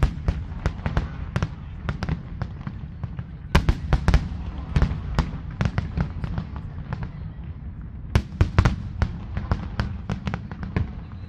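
Aerial fireworks display: a rapid, irregular series of shell bursts banging, in dense clusters near the start, around four seconds in and again around eight to nine seconds in, over a steady low rumble.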